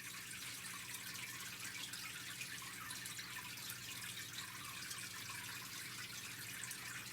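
Steady faint hiss with a low, even electrical hum underneath: recording room tone, with no distinct event.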